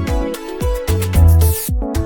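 Background music: an electronic dance track with a steady kick-drum beat and melodic synth lines, with a rising sweep that cuts off sharply near the end.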